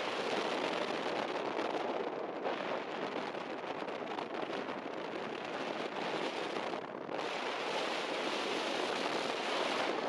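Steady rushing noise of an off-road race vehicle moving over dirt, mixed with wind on the microphone, with a brief lull in the hiss about seven seconds in.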